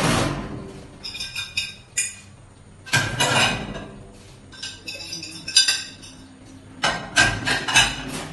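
Dishes and metal pans clinking and clattering against a stainless steel sink as they are handled and washed, in several short clusters, the loudest near the start, about three seconds in, and near the end.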